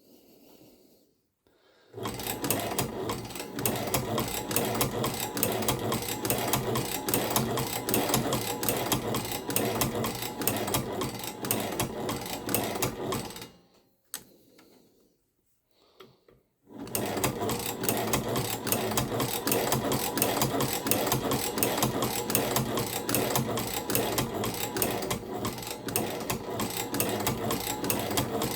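Chinese shoe patcher sewing machine running with a fast, steady clatter while winding thread onto its bobbin. It stops for about three seconds midway, then starts again.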